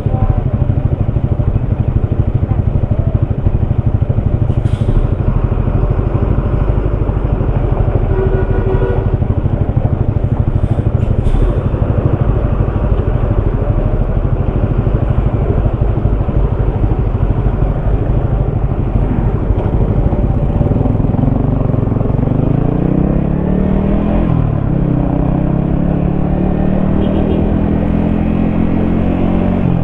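Yamaha XSR155's single-cylinder engine pulling the bike along at a steady cruise, with heavy wind noise. About two-thirds of the way in, the revs climb, drop briefly at a gear change, and climb again as the bike accelerates.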